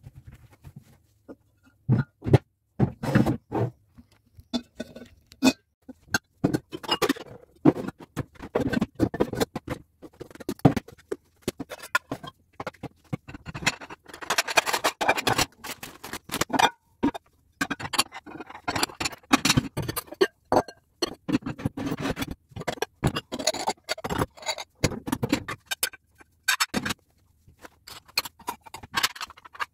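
Ceramic plates and bowls clinking and knocking against each other and the shelf as they are stacked back into a kitchen cupboard, a long run of sharp clatters with some scraping.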